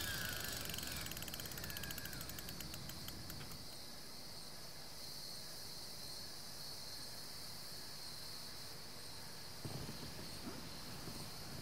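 Faint night ambience of crickets chirping: a steady high trill with a quick pulsing rhythm in the first few seconds. A few soft knocks come near the end.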